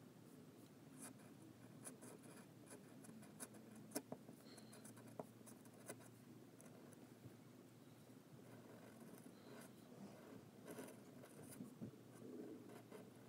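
A Nikko G steel pointed nib in a modified Jinhao fountain pen scratching faintly across paper as it writes, with scattered small ticks as the strokes begin and end.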